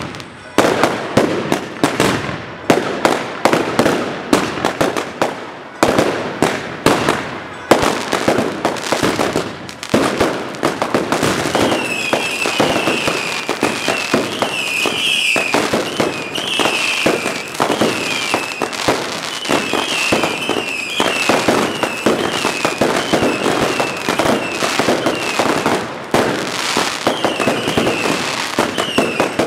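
Consumer fireworks: a dense, irregular barrage of firecracker bangs and bursting aerial shells with crackle. From about twelve seconds in, short high whistles repeat over the bangs.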